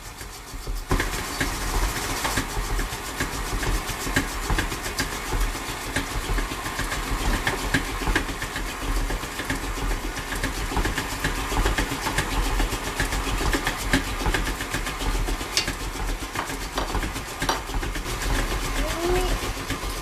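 KitchenAid stand mixer motor switching on about a second in and running steadily, its beater turning brownie batter in the steel bowl.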